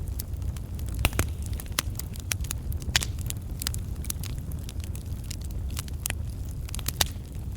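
Wood campfire of burning logs crackling: irregular sharp pops and snaps over a steady low rumble, with a few louder pops about one, three and seven seconds in.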